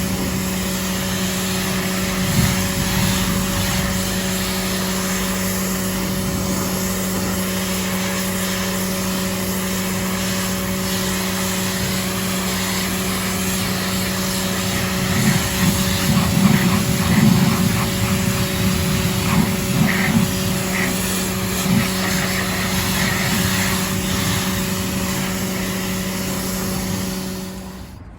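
AVA P60 pressure washer running with its motor giving a steady hum under the hiss of the water jet, then cutting off suddenly near the end.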